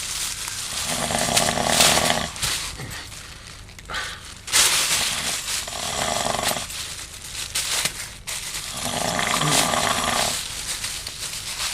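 A man snoring in his sleep: three long snores about four seconds apart.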